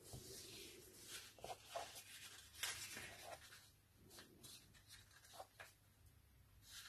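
A sheet of paper being handled and folded on a tabletop: faint rustling, sliding and light scratching as the folded paper triangle is brought over for a soft, unpressed marking crease.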